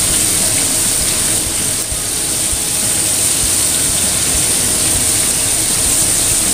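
Battered chicken pieces deep-frying in hot oil in a wok: a steady, loud sizzle with scattered small crackles.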